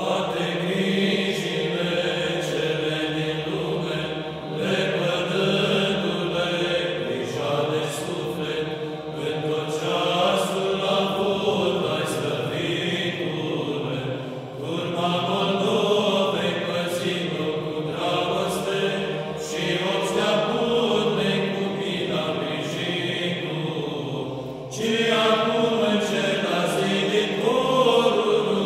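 A psaltic choir singing a Byzantine-chant troparion in the third tone (glas 3) in Romanian: a moving vocal melody over a steady held low drone (ison), with a louder phrase starting near the end.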